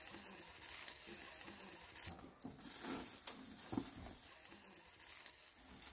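Meat sizzling over a charcoal barbecue grill, a faint steady hiss with a few sharp crackles. Faint voices murmur in the background.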